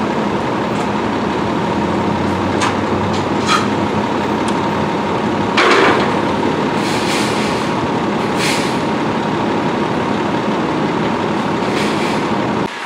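Steady engine and traffic noise from vehicles running on the street, with a short sharp hiss about six seconds in and a few fainter hisses later.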